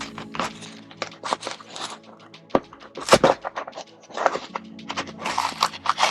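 Cardboard shipping box being cut and worked open: a busy run of scrapes, rustles and knocks, over quiet background music.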